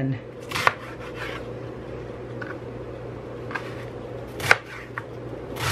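Chef's knife cutting through a head of green cabbage and knocking on a plastic cutting board: about seven separate cuts spaced unevenly, the loudest about four and a half seconds in.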